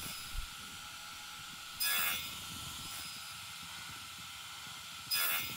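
DeWalt radial arm saw running with a steady whine, its blade biting into a wood scrap in two short cuts, about two seconds in and again near the end, as a groove is nibbled out pass by pass.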